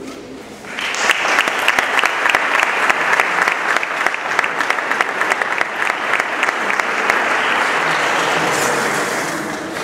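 Audience applauding: dense clapping that starts about a second in and fades out near the end.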